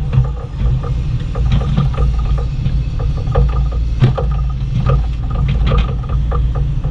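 Bobcat E35i compact excavator digging: its diesel engine runs steadily while the bucket knocks and scrapes through soil, roots and stones, with the sharpest knock about four seconds in.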